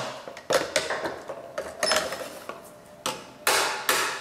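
Hammer tapping a seal installation tool to drive a new front crankshaft seal into a Cummins 6BT timing cover: a run of sharp metal taps. They break off for a moment about halfway, then resume at about four taps a second.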